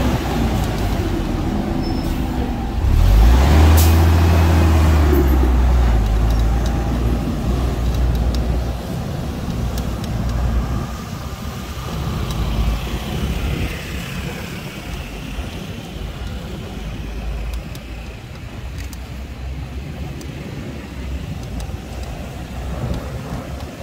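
Street traffic: a heavy vehicle's engine passes close about three seconds in, low and loud for a few seconds, then fades to a steadier, quieter traffic noise.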